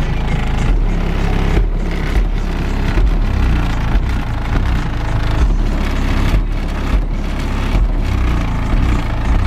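DC Audio 15-inch XLm2 subwoofer in a Groundshaker WXP115 box playing bass-heavy music loud, heard from outside the car: deep bass notes pulsing in a beat, with the rest of the track thin above them.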